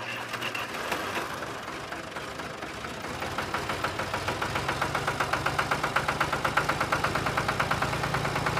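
Tractor engine running, uneven at first, then settling into a steady rapid beat that grows gradually louder from about three seconds in.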